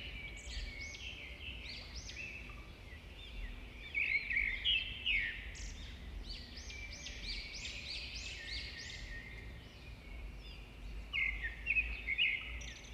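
Small birds chirping and twittering in quick rising-and-falling notes, coming in bursts, over a faint low rumble.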